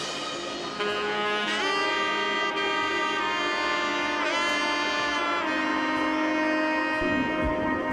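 Background music: a saxophone-like melody of long held notes over soft accompaniment, with a low beat coming back in near the end.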